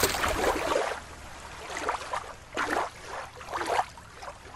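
Shallow water splashing as a plastic toy lobster is plunged in by hand, loudest in the first second, followed by quieter, intermittent water sloshing and gurgling in a few short surges.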